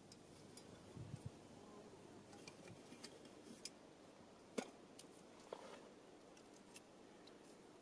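Near silence with faint scattered clicks and ticks from small camping gear being handled, one sharper click about halfway through.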